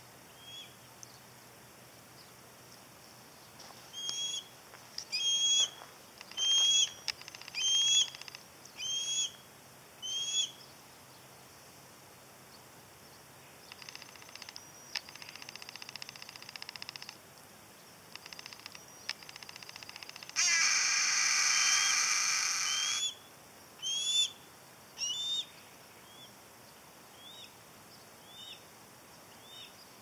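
Harris's hawks calling. A juvenile gives series of short rising squeals about a second apart, in the first third and again near the end. About two-thirds through, an adult gives one long harsh rasping call lasting a couple of seconds, the loudest sound, with fainter harsh calls before it.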